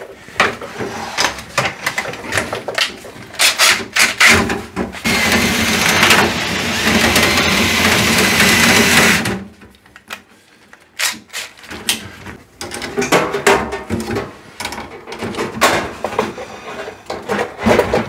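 Metal clicks and clinks of the vent-brush rods and pliers, broken by a cordless drill running steadily for about four seconds, spinning the dryer-vent brush rods, and stopping sharply. The scattered clicks of the rod joints and tools resume near the end.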